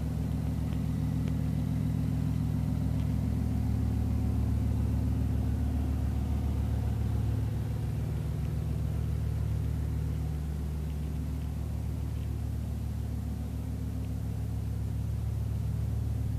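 BMW i8's 1.5-litre turbocharged three-cylinder engine idling steadily, low and even, with no revving.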